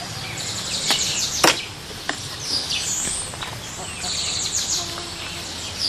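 Wild birds chirping, with repeated quick high calls that rise and fall. Three sharp clicks come in the first two seconds.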